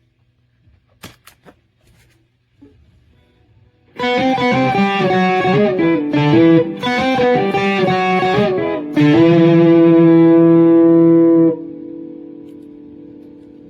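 Electric guitar played through an amplifier: after a few faint clicks, a short phrase of notes begins about four seconds in, ending on a held note that rings and slowly fades.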